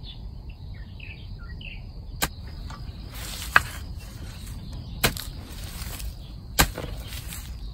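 A hoe chopping into the soil around arrowroot plants: four sharp strikes, about a second and a half apart. Faint chirping in the first couple of seconds.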